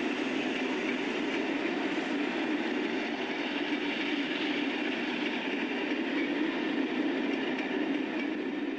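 Train running along the track: a steady, unbroken noise with no clear beat.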